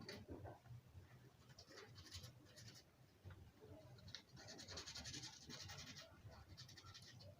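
Faint scratching of sandpaper rubbed by hand over the painted outside of a motorcycle engine, in short scattered strokes, then a longer run of quick back-and-forth scrubbing between about four and six seconds in.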